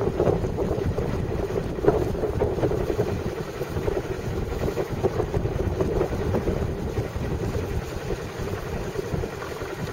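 Wind buffeting the microphone on a boat under way, over a steady low rumble.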